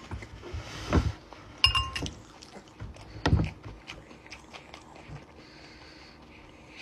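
Close-up chewing and eating sounds, with a metal spoon clinking against a glass bowl once, with a short ring, about a second and a half in, and a few soft knocks and clicks.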